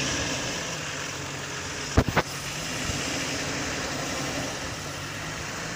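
Nissan Patrol's engine idling steadily, with two sharp knocks in quick succession about two seconds in.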